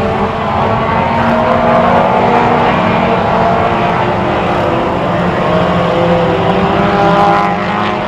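Several four-cylinder ministock race cars running on the oval, their engines at different pitches overlapping and rising and falling.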